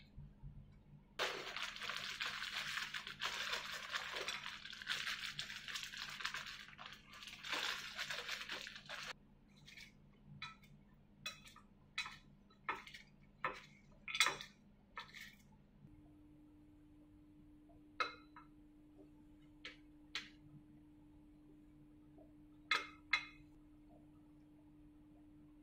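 A clear plastic bag crinkling and rustling for several seconds while raisins are shaken out of it into a glass lunch box. Then a series of light, separate clicks and clinks as metal tongs set food into the glass container, over a faint steady hum.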